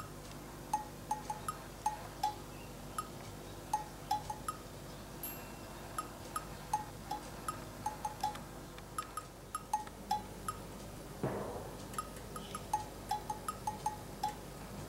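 Light, cheerful background music of short chime-like percussion notes, mostly at two pitches, repeating in a bouncy pattern over a steady low hum. About eleven seconds in, a brief rising noise.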